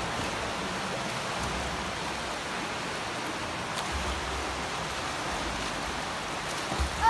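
Steady rushing wash of swimming-pool water: swimmers' front-crawl strokes and kicks churning the water into an even splashing noise.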